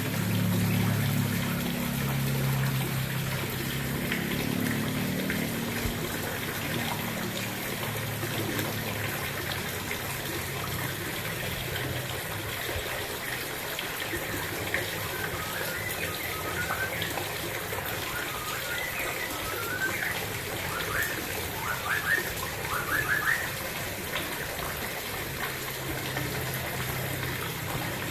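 Water running and trickling steadily into a fish pond. Short high chirps come in a cluster from about halfway through until near the end.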